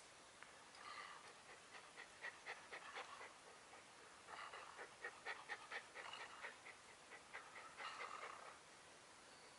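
Faint, rapid, laboured breathing of a sick puppy lying on its side: three spells of quick panting breaths, about five a second, with short pauses between them. The puppy is having difficulty breathing.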